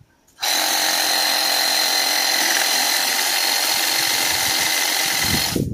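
Abeden cordless reciprocating saw (Makita-battery type) running at a steady speed as it saws through a dry fruit-tree branch. It starts about half a second in and cuts off suddenly near the end.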